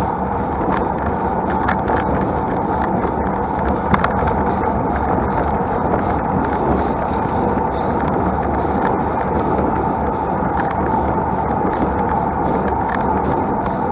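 Road bike climbing, heard as a steady rushing noise of wind and tyres on the road, with many small clicks and rattles scattered through it.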